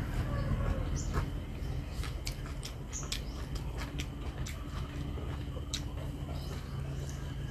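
Close-miked chewing and mouth sounds of a person eating noodles, with scattered small wet clicks.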